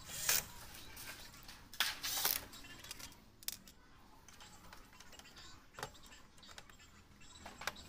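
Tools and small parts being handled on a workbench: a few separate sharp clicks and short clatters, the loudest around two seconds in. No drill motor runs.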